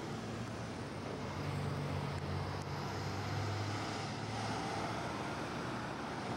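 Steady road and wind noise heard from inside a moving car. A low engine hum swells for a few seconds in the middle, as other vehicles pass close alongside.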